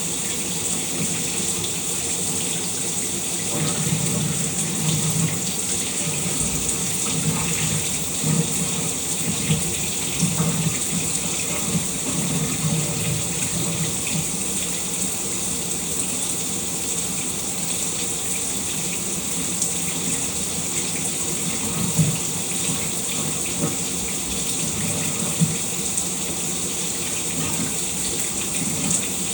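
Shower running steadily, its water spray hissing with a low splashing rumble beneath and an occasional louder splash.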